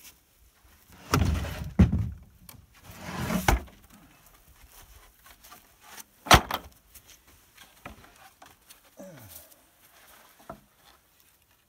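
Heavy wooden pallet being rolled end over end across the ground: scraping with wooden knocks in the first few seconds, then one sharp, loud wooden thunk about six seconds in, and a few lighter knocks after it.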